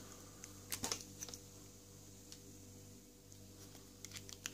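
Faint metal clicks of an Abloy rim cylinder being handled while a thin key is worked in its keyway: a cluster about a second in and a few more near the end, over a steady low hum.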